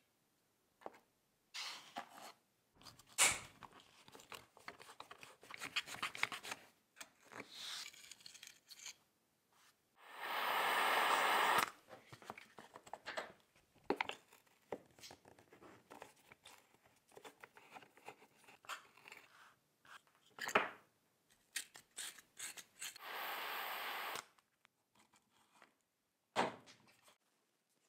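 Hand work on the small steel parts of an old razor blade sharpener: irregular metallic clicks, scrapes and rubbing. Two short bursts of hiss, each about two seconds long, come about ten seconds in and again near the end.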